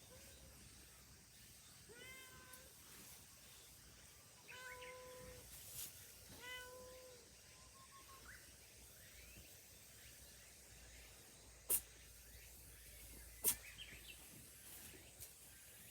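Cat meowing three times, then sneezing twice, with two short, sharp sneezes about two seconds apart that are louder than the meows.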